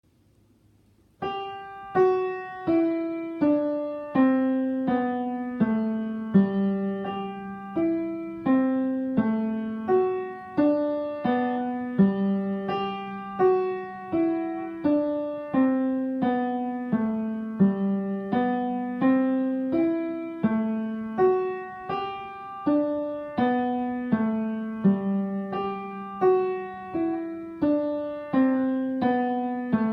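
Piano playing a slow piece of single struck notes in repeating falling phrases over a recurring low note, starting about a second in.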